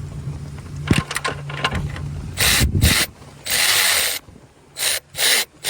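A few sharp clicks and knocks over a steady low hum, then about five short bursts of hissing from a pressurized jet, the longest lasting under a second.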